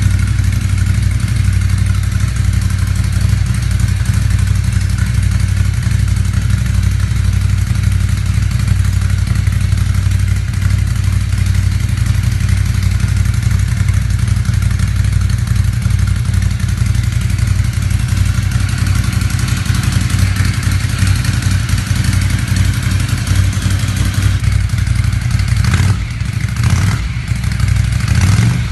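Ducati Scrambler's air-cooled L-twin idling steadily through an HP Corse GP07 aftermarket exhaust, a deep even burble, with a short dip in level about three seconds before the end.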